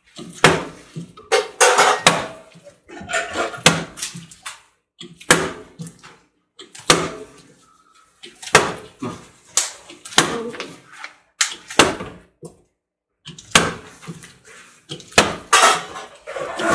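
Plastic water bottle being flipped again and again and landing on a glass tabletop: a string of sharp knocks, roughly one every second.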